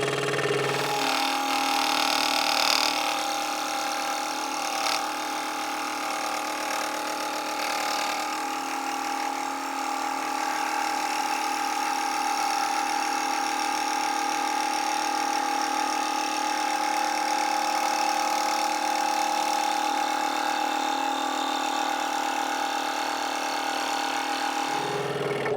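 Hegner Multicut 2S scroll saw running steadily with a large blade fitted, speed set at 1300, its blade cutting through wood. The motor stops suddenly near the end as the foot pedal is released.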